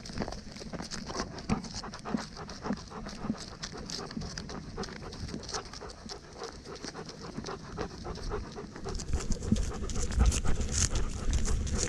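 A dog panting steadily, mixed with many short scuffing sounds. A louder low rumble comes in about nine seconds in.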